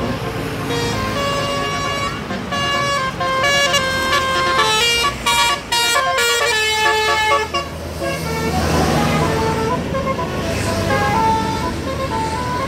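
Bus telolet horn: a bus's multi-tone musical air horn playing a fast tune of stepped notes. About eight seconds in the notes pause while engine and road noise swell, then the tune resumes.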